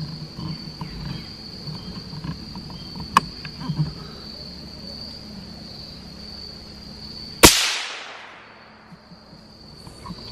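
A single shot from a Bergara BMR bolt-action rimfire rifle in 17 HMR about seven and a half seconds in: one sharp crack with an echo trailing off for about a second. Before it, insects chirr steadily, with a faint click about three seconds in; the chirring fades after the shot.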